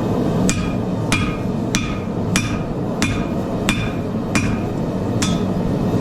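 Hand hammer striking a hot Damascus steel billet on an anvil, about eight blows at an even pace of roughly one every two-thirds of a second, each with a short metallic ring. A steady low roar runs underneath.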